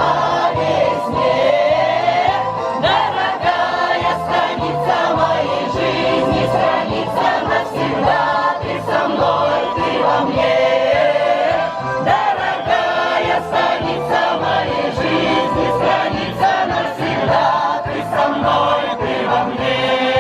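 Women's folk ensemble singing a Russian song together over backing music with a steady beat.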